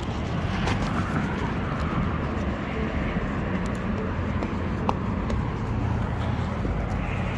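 Steady low mechanical hum over a constant background noise, with a faint click about five seconds in.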